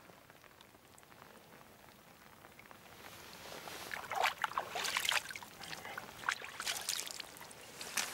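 Splashing and rustling in shallow water and wet grass around a landed carp, faint at first, then from about halfway a run of irregular splashes and crackles.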